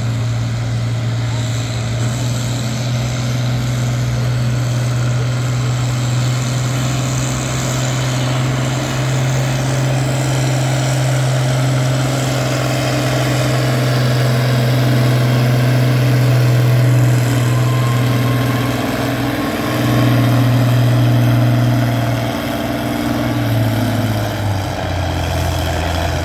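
Turbocharged International Harvester tractor engine running at full load while pulling a weight-transfer sled, a loud, steady drone. After about 18 seconds the pitch starts to waver, and near the end it drops lower as the engine bogs down and the pull slows.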